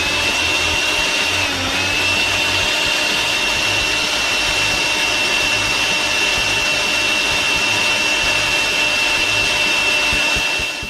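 A small electric motor appliance running steadily with a high whine, its pitch dipping briefly about two seconds in, then cutting off suddenly near the end.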